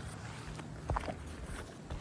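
Faint footsteps and scuffing on an asphalt shingle roof, with two light knocks about a second in.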